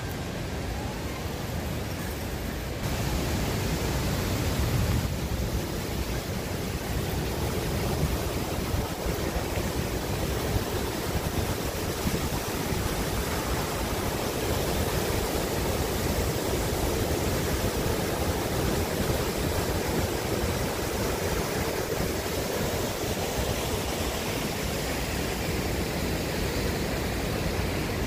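Rushing water from a waterfall and whitewater river rapids, a steady rush with no rhythm or pitch; it gets louder about three seconds in.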